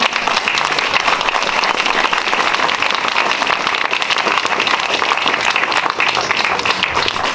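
Audience applauding: a dense, steady clapping from many hands.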